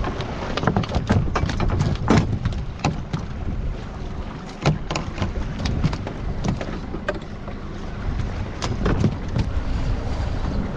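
Wind buffeting the microphone over a steady low rumble on a small boat at sea, with scattered sharp knocks and clicks as a caught fish and the fishing tackle are handled on the deck, thickest in the first few seconds and again about five and nine seconds in.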